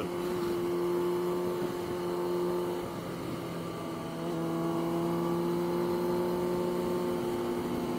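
Motorcycle engine running at highway cruising speed, a steady drone that dips briefly about three seconds in and then settles back at a slightly lower pitch.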